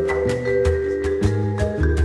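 Background music with a melody of short held notes over a bass line and a steady percussive beat.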